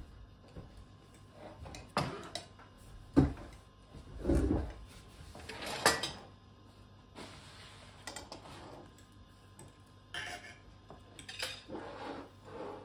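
Dishes and cutlery clattering: irregular knocks and clinks, a few of them sharper and louder.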